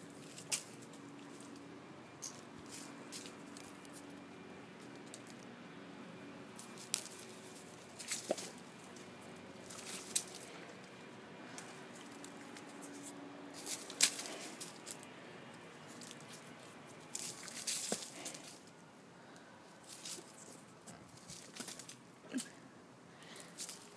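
Dry fallen leaves crunching and rustling in scattered, uneven bursts as a German Shepherd dog runs and pounces among them, with the sharpest crackle a little past halfway.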